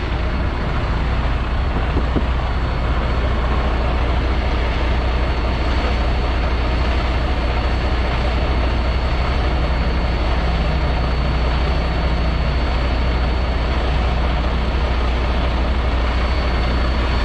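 Semi truck's diesel engine idling close by: a steady, low, unbroken running sound.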